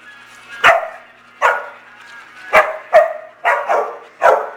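A dog barking in play, seven short sharp barks at an uneven pace, a few coming in quick pairs.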